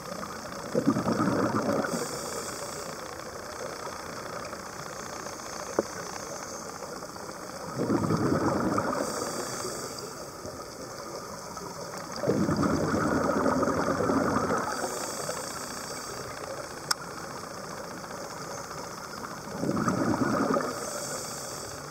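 Scuba diver breathing through a regulator underwater: four bursts of exhaled bubbles, every four to seven seconds, each with a brief high hiss from the regulator, over a steady background hiss.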